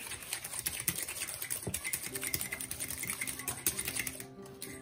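A fork beating eggs and sugar in a glass bowl, a rapid, uneven clatter of the tines tapping and scraping against the glass.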